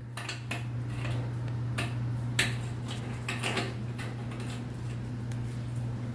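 Scattered light clicks and taps of small washing-machine parts being handled during cleaning, over a steady low hum.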